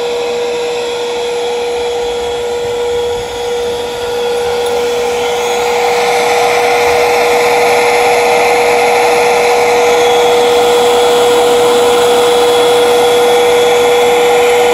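Eureka bagless upright vacuum cleaner running with its hose sucking water from a bucket: a steady motor whine over rushing air, which dips briefly and then grows louder about five seconds in and holds there.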